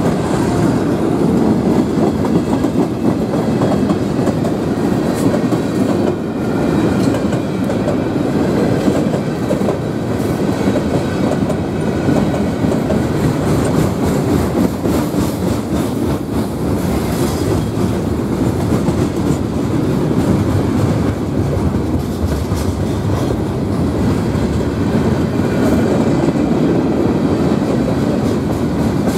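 Freight train cars (covered hoppers, flatcars, gondolas and boxcars) rolling past close by, their steel wheels rumbling steadily on the rails.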